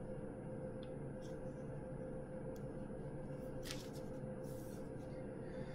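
Quiet room tone: a steady low hum and hiss with a few faint clicks.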